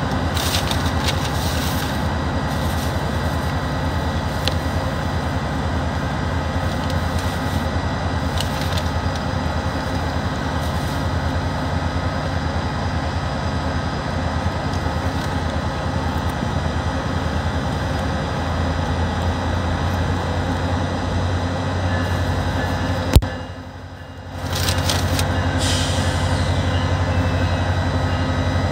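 Steady mechanical rumble with faint held tones, from a train idling at the station. A single sharp knock comes about 23 seconds in, and the sound dips for about a second after it.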